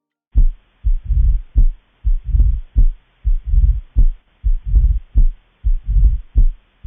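Heart sounds of mitral stenosis heard through a stethoscope, beginning a moment in: sharp heart sounds with a low rumble between the beats, a diastolic murmur. The cycle repeats steadily about once every 1.2 seconds.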